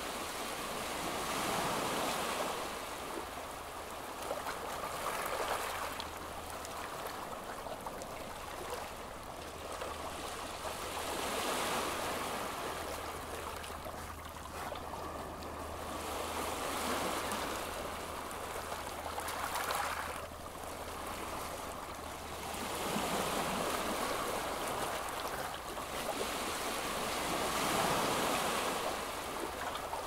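Sea-wave ambience: rushing water that swells and eases every few seconds.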